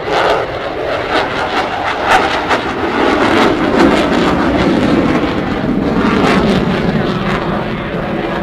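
Jet aircraft flying over, its engine noise loud and steady, swelling a few seconds in.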